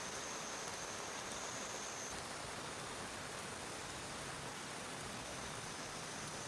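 Steady rain falling, an even hiss, with a faint thin high-pitched tone that steps up in pitch about two seconds in.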